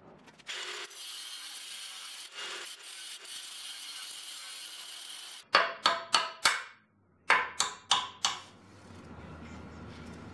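Hand file rasping along the freshly cut aluminium edge of a CD009 transmission bellhousing, deburring the sharp edge: a steady scrape at first, then quick runs of short strokes from about halfway through.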